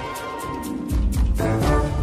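Background music with a steady ticking beat, which grows fuller and louder about a second in.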